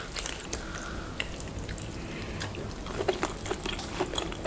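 Soft wet squishing with small clicks and cracks: cooked crayfish (spiny lobster) meat being pulled from the shell by gloved hands, along with chewing.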